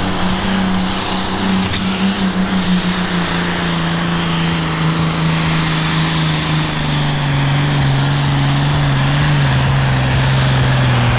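Diesel engine of a John Deere pulling tractor running hard under load as it drags a weight-transfer sled. The engine note sinks slowly and steadily in pitch as the sled's resistance builds and pulls the revs down.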